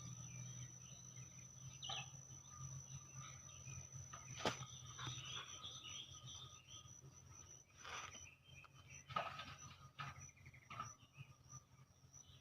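Quiet countryside ambience: birds chirping, mostly in the first half, over a steady high-pitched insect drone and a low hum. A few sharp knocks cut through, the loudest about four and a half and nine seconds in.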